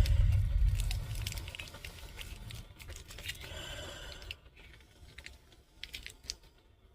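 Handling noises while making coffee: a low thump and rumble in the first second or so, then scattered clicks and rustling that grow sparser and quieter after about four seconds.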